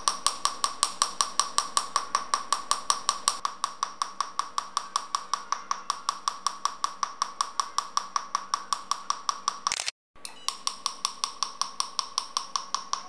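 Picosecond laser handpiece firing rapid, evenly spaced shots, about five a second, each a sharp snap with a short tone, as the pulses blast the black carbon mask on the skin. The train breaks off briefly about ten seconds in.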